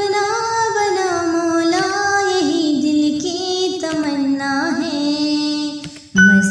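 A high solo voice singing a naat, holding long notes with gliding ornaments. It breaks off briefly about six seconds in and comes back louder.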